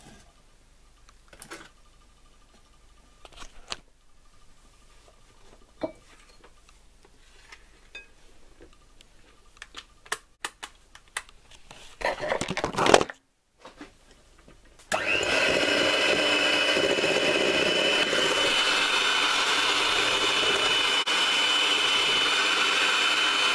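Electric hand mixer starts about fifteen seconds in and runs steadily with a high whine, its beaters mixing a batter in a glass bowl. Before it there are only faint clicks and handling, and a brief louder noise shortly before the motor starts.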